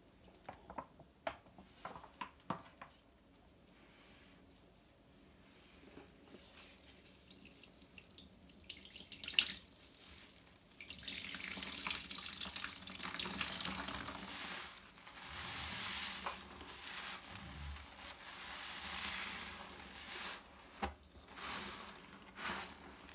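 New foam sponges soaked in liquid soap being squeezed by gloved hands in a tub: a few small wet clicks at first, then from about halfway in a sustained wet squelching and dripping as the soap is pressed out and worked into foam, swelling and easing with each squeeze.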